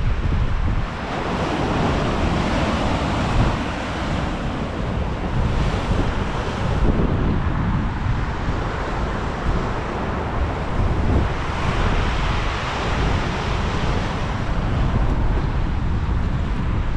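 Wind buffeting the bare microphone of a handlebar-mounted GoPro HERO10 on a moving bicycle, with the rush of large storm waves breaking on the shore. The wave noise swells and falls every few seconds.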